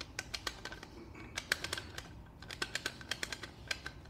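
Light, irregular clicking and rattling of metal rifle parts being handled: the Flarm F4 carbine's aluminium handguard being worked off over the barrel nut.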